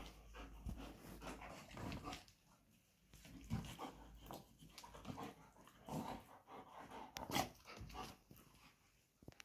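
German shepherds scuffling with a small dog, making short growls and whimpers in irregular bursts, with panting; the loudest burst comes about seven seconds in.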